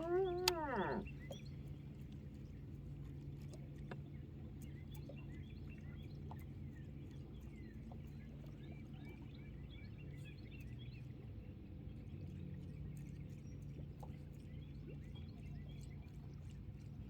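A loud call that rises and falls in pitch, about a second long, right at the start. After it come a steady low hum and faint scattered bird chirps.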